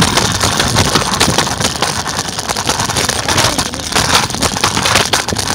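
Scooter rolling along a concrete sidewalk: a loud, continuous gritty rattle and rumble from the wheels over the pavement.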